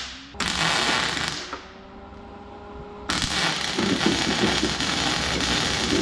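MIG welder crackling as it lays weld onto a broken exhaust bolt stub in an aluminum cylinder head: a burst of about a second, a pause, then a longer burst of about three seconds.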